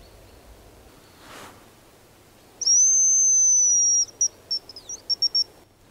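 Hazel grouse decoy whistle blown close by, imitating the bird's song: one long high whistle that falls slightly, then a quick run of short broken notes.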